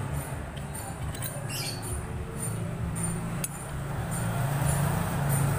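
Light metallic clinks and scrapes of clutch plates being slid by hand into a Yamaha Vixion's clutch basket, over a steady low hum.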